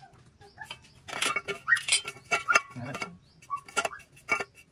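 Sharp metallic clicks and clinks of a steel combination square being placed and shifted against a thin steel square tube as a line is marked on it.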